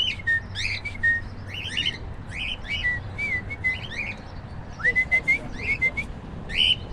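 Cockatiels chirping and whistling: a run of short rising chirps mixed with a few briefly held whistled notes, with a handful of sharp clicks about five seconds in.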